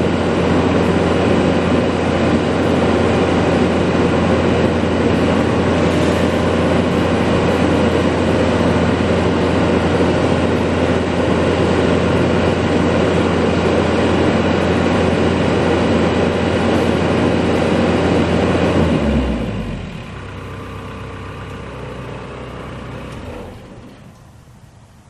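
CAT 305 mini excavator's diesel engine running steadily, then shutting off about three-quarters of the way through and winding down. A fainter sound lingers for a few seconds, then drops away near the end.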